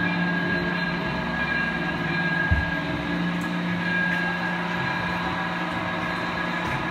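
Model trains running on a layout, giving a steady electric motor hum with the rumble of wheels on track. A single low thump comes about two and a half seconds in.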